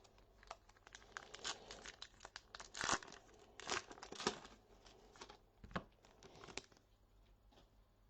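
A trading card pack wrapper being torn open and crinkled by hand: a run of sharp rips and crackles, loudest about three seconds in, then a few quieter crinkles as the cards are handled.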